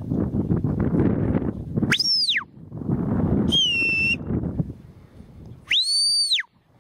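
Three whistled commands from a sheepdog handler to a working dog. About two seconds in comes a quick whistle that rises and falls, then a short, flatter one that slides slightly down, and near the end a longer whistle that rises, holds and drops.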